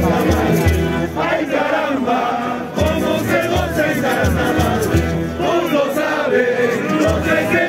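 Live Pandilla puneña festival music from a street band, with a steady low drum beat under the melody and crowd voices mixed in.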